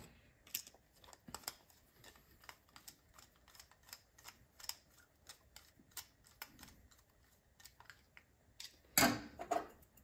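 Light clicks and taps of small metal carburetor parts and a screwdriver as the emulsion tube and main jet are fitted back into a snowblower carburetor, with a louder clatter about nine seconds in.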